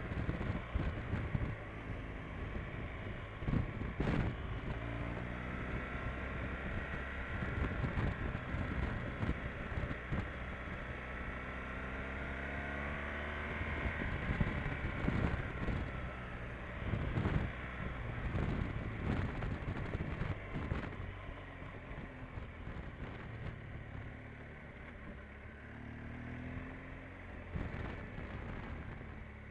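Motorcycle engine running under way, its note rising and falling as the throttle is rolled on and off, with wind and road noise and occasional bumps on the bike-mounted microphone.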